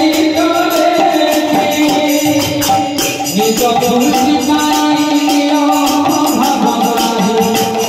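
Devotional bhajan: a man's voice sings a held, slowly stepping melody over a microphone, with a quick, steady beat of hand clapping and jingling percussion.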